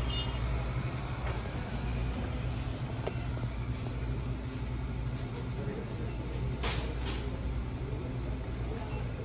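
Big-box store ambience: a steady low hum with faint distant voices and a faint high beep every few seconds. Two brief rustles come a little past halfway as a wrapped card box is handled.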